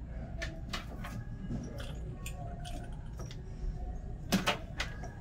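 Scattered light clicks and knocks of small objects being handled and set down, with a louder cluster near the end, over a steady low hum.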